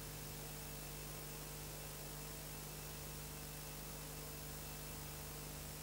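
Steady mains hum with faint hiss, the background noise of an old videotape soundtrack. Nothing else is heard.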